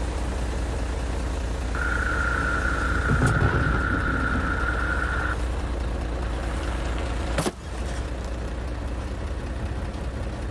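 Heavy truck's diesel engine running steadily at idle, its wheel loading a stack of laminated bulletproof glass. A steady high tone holds for a few seconds near the start, and a single sharp crack comes about seven seconds in as the glass gives way under the tyre.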